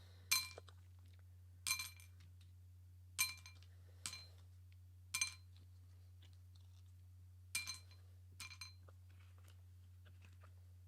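Small hard objects clinking, about seven separate clicks one to two seconds apart, each with a brief bright ring at the same pitches, over a steady low electrical hum.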